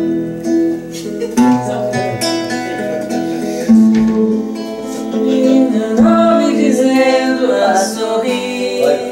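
Acoustic guitar strummed in a song's instrumental passage between sung lines, with voices singing along in the background.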